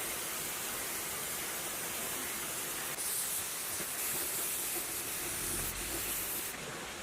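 A steady hissing spray, brighter and a little louder for about three seconds in the middle.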